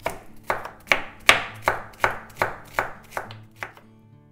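Chef's knife chopping a red bell pepper on a bamboo cutting board: about ten even strokes, a little over two a second, that stop shortly before the end.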